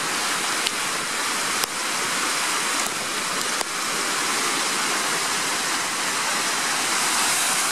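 Steady rushing water noise with a few faint ticks.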